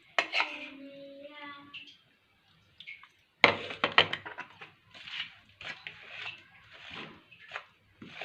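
A brief indistinct voice, then a loud clatter of utensils and dishes about three and a half seconds in, followed by a run of short scraping and knocking sounds from mixing in the kitchen.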